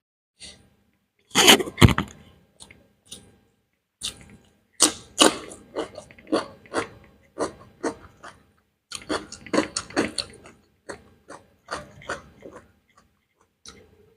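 Close-miked chewing and mouth smacks of someone eating beef biryani, short wet clicks coming about two or three a second. A louder burst of noise about one and a half seconds in.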